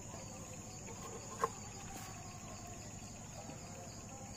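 Faint, steady high-pitched insect trilling, with a single light knock about a second and a half in.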